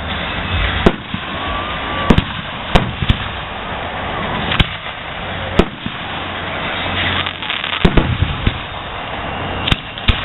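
Aerial firework shells bursting overhead: about ten sharp bangs at uneven intervals, over a steady background hiss.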